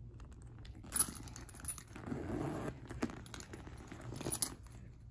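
A tote bag being handled: the bag's material rustling and crinkling, with a few sharp clicks of its metal hardware, the loudest about a second in.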